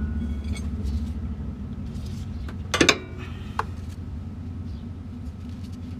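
Adjustable wrench working a tie rod end nut, with one sharp, ringing metal clink a little under three seconds in and a lighter click just after, over a steady low rumble.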